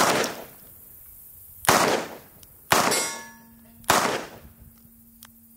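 Revolver firing four single shots, roughly a second apart. The third is followed by a brief metallic ring, as of a steel target being hit.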